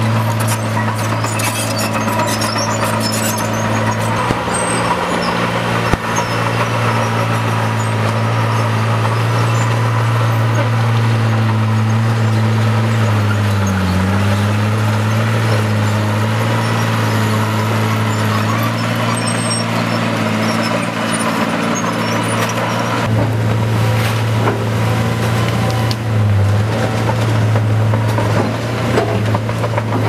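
Caterpillar crawler bulldozer's diesel engine running steadily under load. About halfway through, its pitch dips briefly as it lugs down, then recovers.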